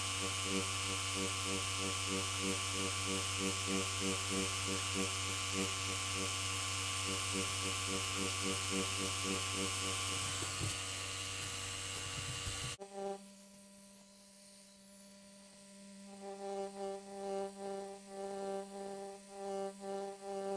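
Tattoo pen machine running with a steady hum and hiss over soft background music. About two-thirds of the way through the machine cuts off suddenly, leaving the music, which has a regular pulsing beat.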